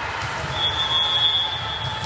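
Referee's whistle: one steady, high-pitched blast starting about half a second in and lasting well over a second.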